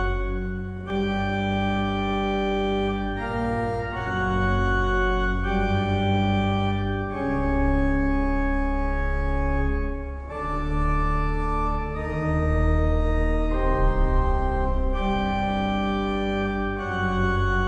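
Pipe organ, the historic 1532 Vincenzo Colombi organ, playing a contemporary toccata. Full sustained chords change every second or two over a deep held bass.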